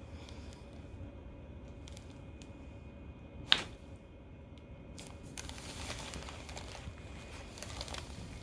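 Rustling and shuffling of a patient and chiropractor moving on a treatment table, with one sharp click about three and a half seconds in and a smaller one near the end.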